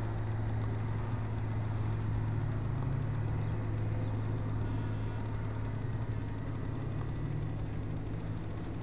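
ParkZone Champ RC plane's electric motor and propeller at half throttle: a steady, even drone heard from the ground, fading a little towards the end.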